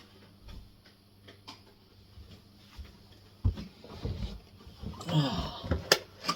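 Light knocks and clicks of things being handled. A louder knock comes about three and a half seconds in, more knocking and rustling follows, and a sharp click comes near the end.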